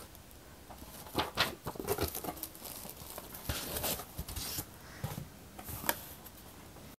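Packaging being handled while an air purifier is unboxed: irregular rustling and crinkling with a few sharper taps and clicks, the loudest about a second and a half in and again near the end.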